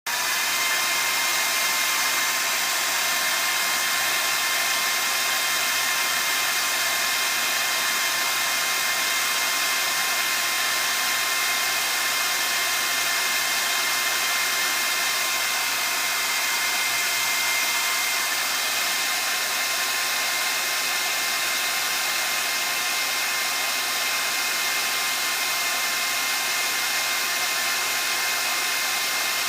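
Handheld hair dryer switched on, its whine rising briefly as the motor comes up to speed, then running steadily: an even rush of blown air with a high motor whine.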